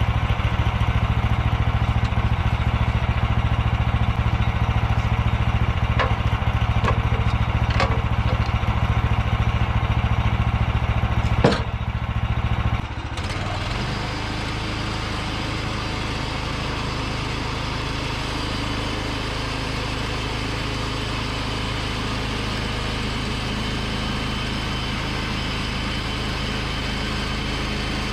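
Sawmill engine running at speed during a cut, with a sharp clank about eleven seconds in. About thirteen seconds in it drops down and runs on at a steady idle.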